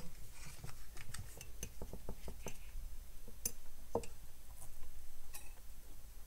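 Soldering iron heating desoldering braid on a circuit-board pad: scattered, irregular faint ticks and crackles of the flux as the wick soaks up the solder, one a little louder about four seconds in.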